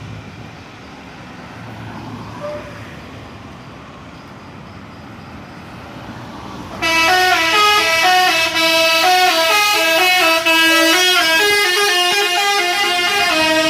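A bus's telolet horn, a set of musical air horns, playing a fast melody of stepping notes. It starts about seven seconds in and is loud from then on; before it there is only a low rumble of engines and road noise.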